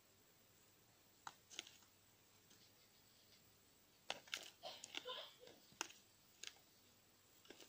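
Faint, sharp plastic clicks and light taps as a plastic syringe is moved inside a plastic tub with gravel substrate: a couple of clicks, then a quick cluster about four seconds in, then a few single clicks.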